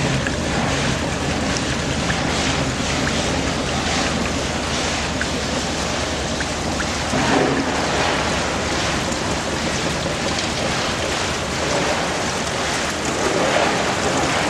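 Shaking table (table concentrator) running: wash water streaming across the reciprocating deck over the steady hum of the drive head.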